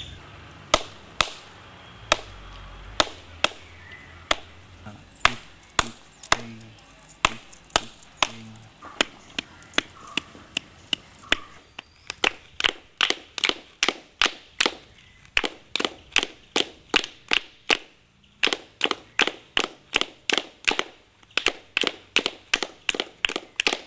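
A long series of sharp clicks in rhythm: uneven and spaced out at first, then from about halfway a fast, even run of roughly three to four clicks a second.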